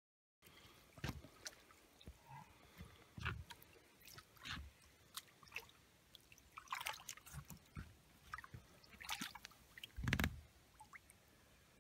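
Faint splashing and dripping of lake water as hands hold a mirror carp in the shallow margin to return it, with a louder splash about ten seconds in.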